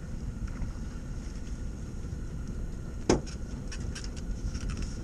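Steady low rumble of a fishing boat on open water with wind on the microphone. A single sharp knock sounds about three seconds in, followed by a few light clicks.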